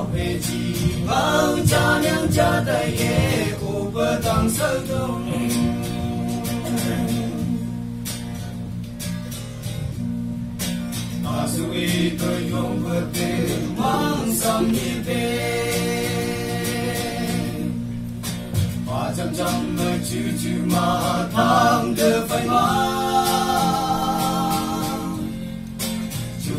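A group of young men singing a song together from lyric sheets.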